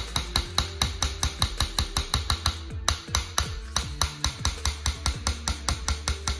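Rapid light hammer taps, about five a second, driving a bullet stuck in the barrel of a Bulgarian Makarov pistol out through the muzzle. The barrel is held in the hand rather than braced on a hard surface, so the hand takes up the blows. Background music plays underneath.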